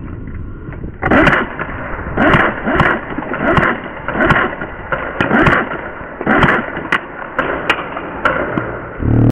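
Footsteps and gear clatter of an airsoft player walking briskly on a hard floor, about one and a half steps a second. Scattered sharp clicks among them are single airsoft rifle shots fired on the move.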